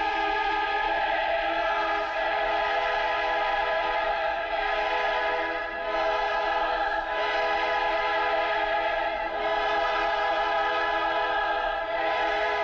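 Choral music: a choir holding long, sustained chords, with brief breaks between phrases.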